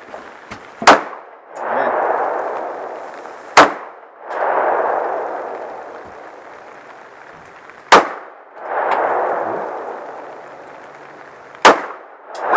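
Four pistol shots a few seconds apart, each sharp crack followed by a long rolling echo that swells and fades over two to three seconds.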